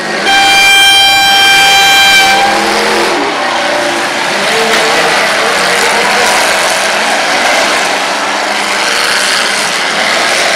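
An air horn blasts one steady note for about two seconds, then a crowd of demolition-derby stock cars' engines rev and race in the muddy arena.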